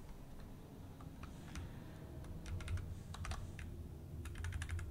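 Typing on a computer keyboard: quiet keystrokes in short, irregular bursts with brief pauses between them.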